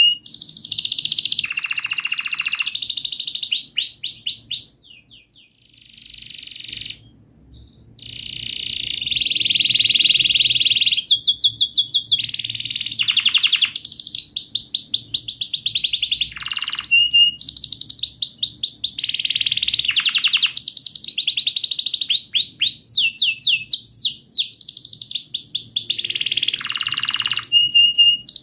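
Domestic canary singing a long, loud song of rapidly repeated chirps and rolling trills, with a pause of a few seconds about five seconds in.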